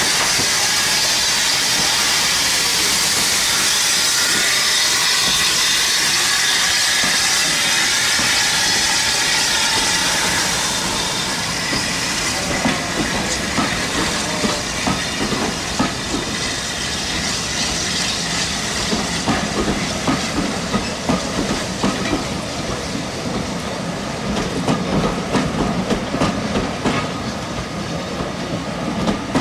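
Great Eastern Railway Y14 steam locomotive passing with a loud, steady hiss of steam for about the first ten seconds. Its train of LNER coaches then rolls by, the wheels clicking over the rail joints.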